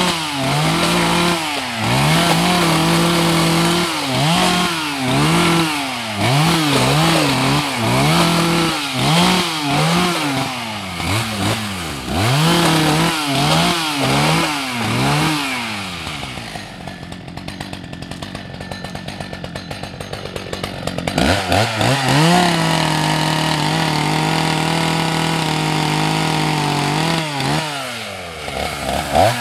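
Husqvarna 181 SE two-stroke chainsaw cutting branches off a felled pine, revved up and down in quick repeated bursts. About halfway through it drops to idle for several seconds, then revs up and holds high for about five seconds before dropping back near the end.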